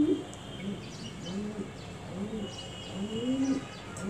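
A pigeon cooing over and over: a series of low coos, each rising and falling, about one a second.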